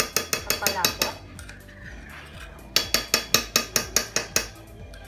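A metal spoon clinking rapidly against a small opened tin can, about seven strikes a second, knocking the last of its contents out into a cooking pot. There are two runs of quick clinks, the second starting a little before the middle.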